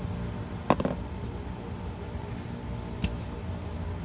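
Two short plastic clicks, a louder one near the start and a fainter one near the end, as the shipping caps are pulled off the ends of a new fuel filter, over a steady low hum.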